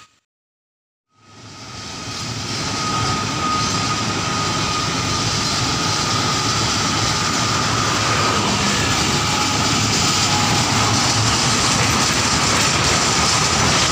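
After about a second of silence, the steady running noise of a small narrow-gauge plantation diesel locomotive hauling its wagons fades in and holds, with a constant whine over it.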